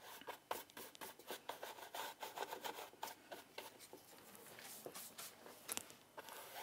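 Bristle paintbrush scrubbing acrylic paint onto a stretched canvas in quick back-and-forth strokes, about four a second, faint. The strokes thin out around four seconds in, then a few more follow near the end.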